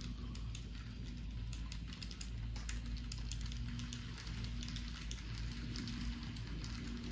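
N-scale model train running along the layout's track: a low steady hum with an on-off tone, dotted with many small irregular clicks of the wheels over rail joints and turnouts.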